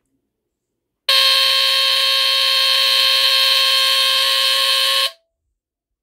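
Honeywell TC49D hardwired smoke detector's Kobishi CLB-27 mechanical squealer horn sounding on a test-button press: one loud, steady, raspy alarm tone that starts about a second in and cuts off sharply about four seconds later.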